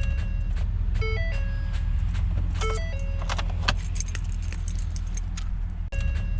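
2015 Ford F-150 refusing to start: rapid clicking with no cranking, the sign of a dead battery. A stepped electronic chime repeats over a steady low hum.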